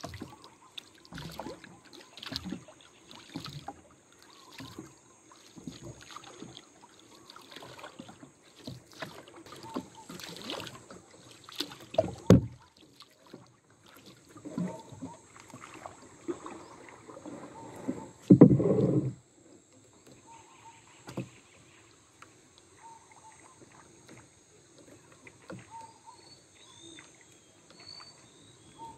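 Water lapping and sloshing against a small outrigger boat, with irregular knocks and handling sounds on the boat. A sharp knock comes about twelve seconds in, and a louder thump lasting under a second a little past halfway.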